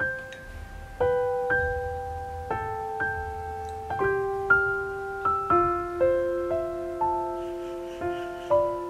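Slow, gentle solo piano background music: single notes struck about every half second, each left to ring and fade.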